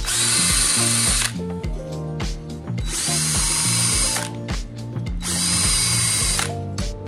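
Power tool spinning a wire wheel against steel in three bursts of about a second each, cleaning the surface and nuts to be welded back to bare metal. Background music with a steady beat runs underneath.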